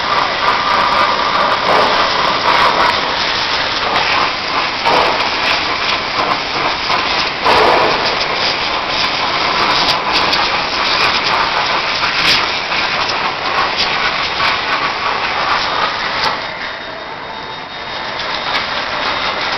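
High-pressure washer jet hissing as it spatters against the steel bodywork and loader arm of a backhoe loader. It eases for a couple of seconds near the end, then picks up again.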